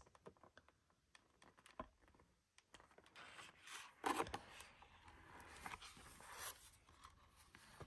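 Faint scraping and rustling of a cardboard pop-up board book's pages as they are handled and turned, with a small click about two seconds in.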